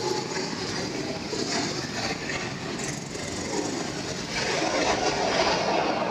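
Go-kart engines running as a pack of karts passes round a bend. The sound eases off, then grows louder again from about four seconds in as the next karts approach.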